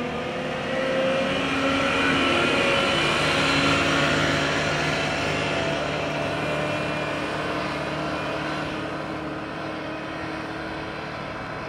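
Caterpillar 908H compact wheel loader's diesel engine running as the machine drives past and away, loudest a few seconds in, then slowly fading with distance.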